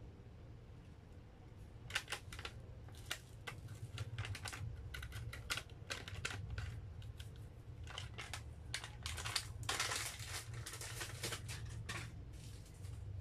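Plastic packaging crinkling and light clicks from hand handling, in short irregular bursts that are busiest about ten seconds in.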